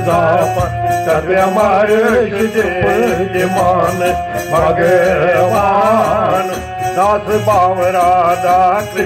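Kashmiri devotional song: a male voice sings a melodic line with vibrato over a steady low drone and instrumental accompaniment.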